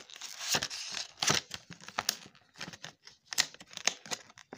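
Clear plastic blister packaging crackling and crinkling as it is pried and peeled off its cardboard backing, in irregular sharp clicks and snaps.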